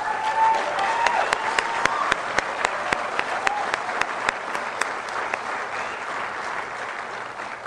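Audience applauding, dense clapping with a long, drawn-out cheer from a voice in the crowd over it during the first few seconds. The applause dies away near the end.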